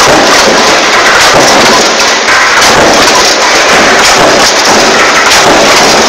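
Mechanical power press running a progressive die that stamps sheet-metal electrical junction boxes, its repeated strokes merging into a dense, very loud clatter that overloads the recording.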